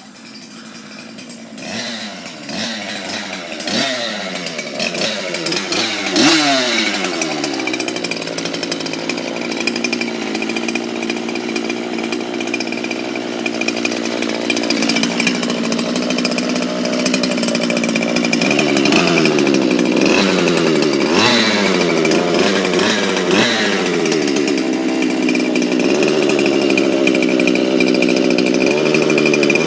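Chainsaw engine revving up and down several times, running at a steady high speed between the revs, then revving again in the second half.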